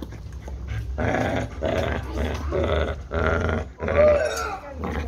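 Pit bull growling as it bites and tugs a lure hanging from a spring pole. A steady low growl runs underneath, and louder, higher growls come in stretches from about a second in, bending in pitch.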